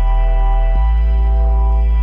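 Background music of held chords over a deep bass note, which steps to a new note about three-quarters of a second in.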